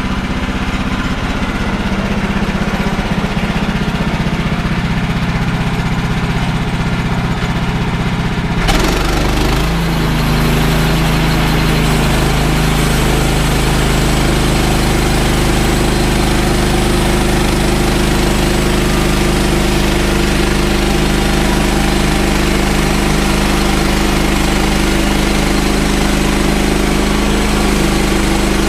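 Gas engine of a portable bandsaw mill running at low speed, then throttled up sharply about nine seconds in. It then runs steadily at speed, with the hiss of the band blade cutting through a large fir log.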